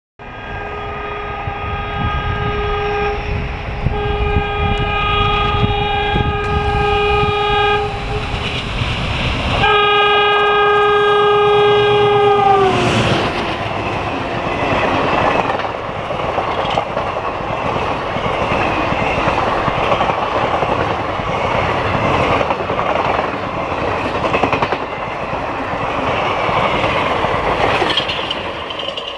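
WDP-3A diesel locomotive sounding its horn in three long blasts as it approaches at speed; the pitch of the last blast drops as the locomotive passes. Then the passenger coaches rush past, their wheels clattering over the rail joints.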